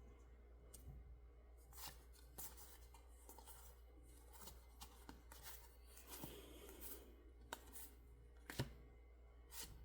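Faint, irregular clicks and rustles of Pokémon trading cards being handled and flipped through as a booster pack is opened, with a couple of sharper snaps near the end.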